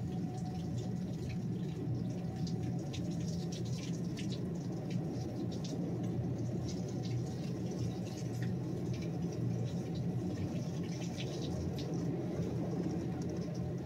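Heavy rain coming down in sheets: a steady, dense rush with many small drips and splatters ticking on top.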